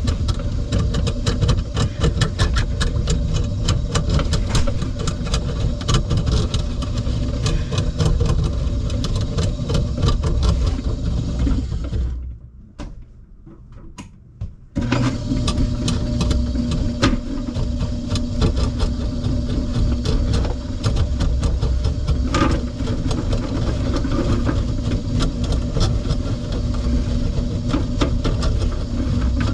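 Motorized drain-cleaning cable machine running, its cable spinning and rattling in a clogged greasy kitchen drain line with constant clicking. The motor stops about 12 seconds in and starts again about two and a half seconds later.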